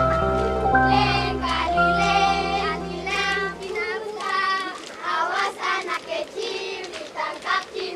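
A group of children singing together as they go round in a ring game. Under the singing, held instrumental music tones play and stop about halfway through, leaving the voices alone.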